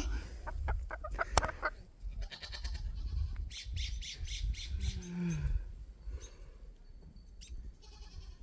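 Barnyard chickens squawking and clucking, with scattered clicks and a short, low, falling animal call about five seconds in.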